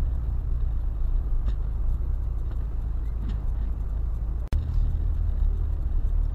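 Steady low road rumble of a car travelling at highway speed, picked up by a dashcam inside the cabin, with a brief dropout about two-thirds of the way through.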